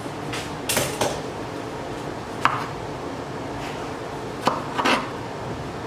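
Kitchen knife knocking on a cutting board while tomatoes are cut: about seven irregular sharp knocks, the loudest one near the start.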